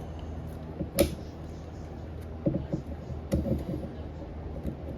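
Small plastic clicks and snaps as a Samsung Galaxy A15's clipped-in frame is pried apart, with one sharp snap about a second in and smaller clusters of clicks after it.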